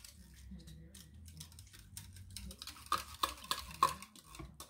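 Metal utensil stirring broth inside an emptied tin soup can, scraping and clinking against the can, with a few louder clinks about three seconds in.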